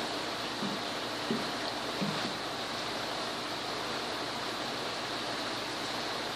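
Steady hiss of room background noise between songs, with a few faint soft knocks in the first two seconds.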